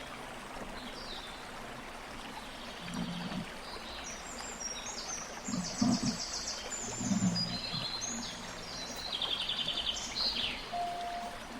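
Birds chirping and trilling over the steady rush of running water, with a couple of low thumps about a second apart midway through.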